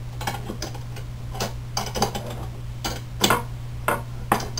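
A small wrench and steel nuts and washers clicking and clinking at irregular intervals as nuts are tightened on the threaded steel rods of a Prusa Mendel printer frame, against a printed plastic corner piece.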